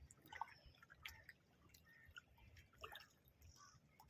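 Faint small splashes and drips of sea water, a few soft splashes spaced a second or more apart.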